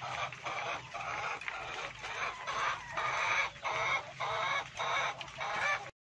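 A flock of caged laying hens clucking and calling, a steady run of short calls about two a second.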